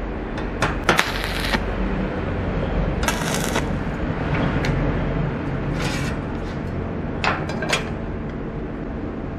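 Workshop handling noises: several sharp knocks and clacks and two short scraping rasps over a steady low rumble.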